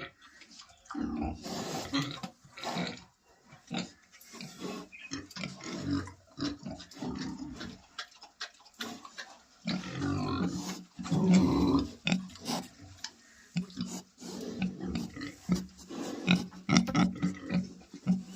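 Pigs grunting in irregular bouts, loudest about ten to twelve seconds in.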